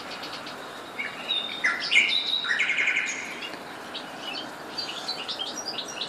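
Caged finches, European goldfinches among them, chirping and singing. A loud twittering phrase of trills and short whistles runs from about one to three seconds in, with scattered chirps before and after.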